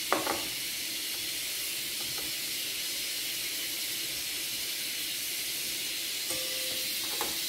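A steady high hiss, with a few faint light clicks from handling the glass bowls while banana peels are dipped in egg and breadcrumbs.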